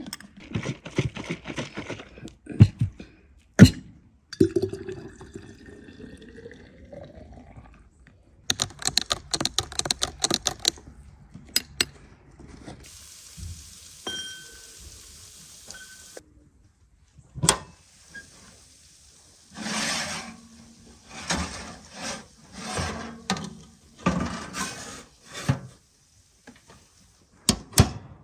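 Clinks of glass and plastic, then liquid poured into a glass jug, its pitch rising steadily as the jug fills; after that come more clattering, a steady hiss and a string of short rubbing and knocking sounds.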